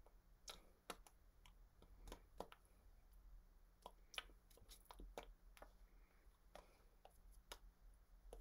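Near silence with scattered faint clicks and taps from hands striking and brushing against each other while signing in sign language, over a low steady hum.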